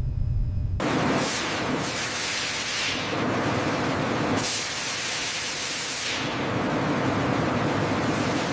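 A loud, steady spraying hiss that starts about a second in, after a low rumble, and shifts a little every second or two.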